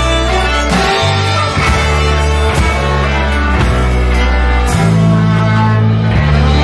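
Live folk-rock band playing an instrumental passage: two fiddles over acoustic guitar, electric guitar, electric bass and drums, with the bass line stepping through new notes every second or so.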